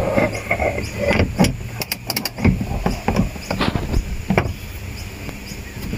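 Scattered metal clicks and knocks of hand tools being fitted against a jet ski's steel hood-strut bracket, with a quick cluster of clicks about two seconds in, over a low steady hum.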